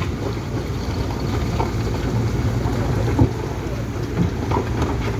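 Wind buffeting the microphone over a steady low rumble, with a few faint knocks.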